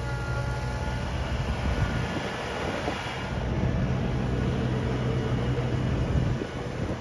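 Kubota BX compact tractor's diesel engine running steadily, with a higher whine over it for the first few seconds.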